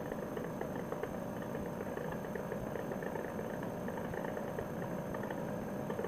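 Paramotor trike's engine and propeller running steadily at low power.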